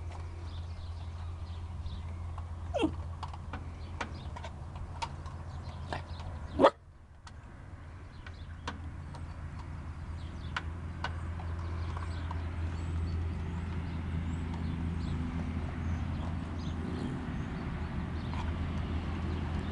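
Puppy whining and yipping now and then, with one short loud yip about a third of the way through, over a steady low rumble.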